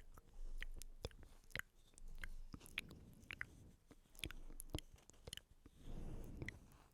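Close-miked ASMR mouth sounds: irregular wet clicks and smacks, with soft swells of hushing noise between them.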